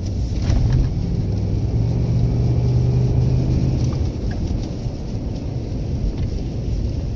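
Ford pickup truck driving on snowy road, its engine running with a steady low rumble; the engine note holds a little stronger for about two seconds in the first half.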